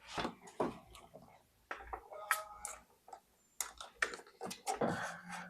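Irregular light clicks, taps and knocks from hands working under a desk to take off an old homemade wooden cable tray.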